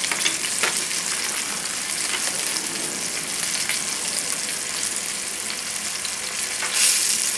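Bone-in chicken thighs coated in brown rice flour sizzling in oil in a stainless steel skillet over a high flame: a steady frying hiss that swells briefly near the end.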